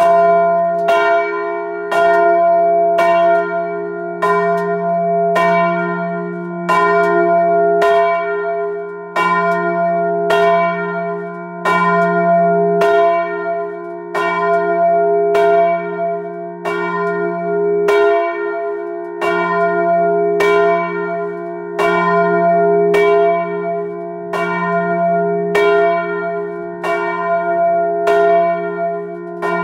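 Large cast-steel church bell swinging full circle and ringing up close in the belfry. Its clapper strikes about once a second in an even rhythm, and each stroke rings on with a deep hum under the next.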